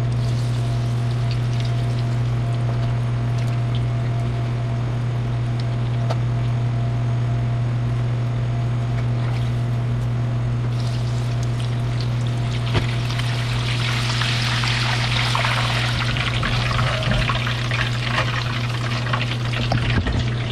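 Hot oil in a pot sizzling and crackling as breaded chicken croquettes deep-fry, growing much louder and busier about halfway through, over a steady low hum.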